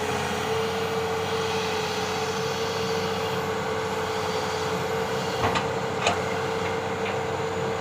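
Excavator's diesel engine running steadily, with a constant whine over it and two short knocks about two-thirds of the way through.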